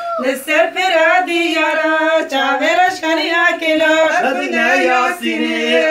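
A group of men and women singing a folk dance song together, in long held notes that bend up and down in pitch.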